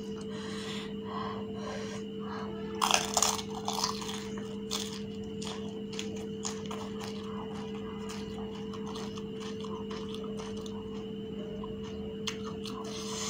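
Close-up crunching bite into a crisp, hollow fuchka (pani puri) shell soaked in tamarind water, with a cluster of loud crunches about three seconds in. Wet chewing with small clicks follows. A steady low hum runs underneath.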